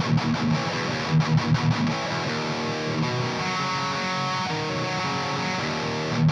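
High-gain distorted electric guitar through a Splawn Quickrod 100 amp into Celestion Vintage 30 speakers. It plays fast palm-muted chugs for about two seconds, then held, ringing chords, and the chugging returns near the end.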